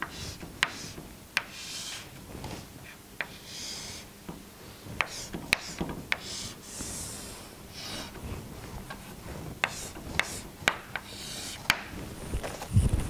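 Chalk drawing lines on a chalkboard: short scraping strokes with sharp taps as the chalk meets the board, over a dozen taps in all. A low thump near the end.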